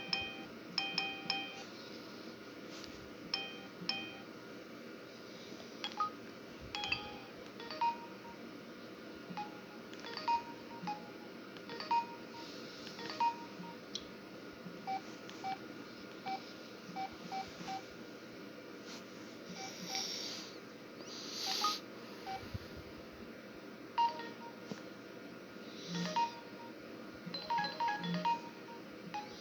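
Samsung U900 Soul mobile phone playing a ringtone: a tune of many short, beep-like electronic notes.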